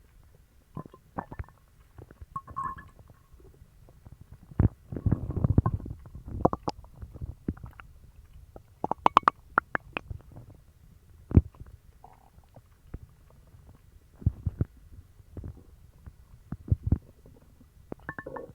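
Human stomach growling and gurgling in irregular bouts, with sharp pops and short squeaks. A longer, denser rumble comes about five seconds in. The belly is upset from eating dog treats.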